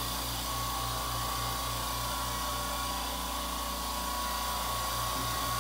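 California Air Tools air compressor running steadily, not that loud: a low hum that pulses about three times a second, with a steady whine above it.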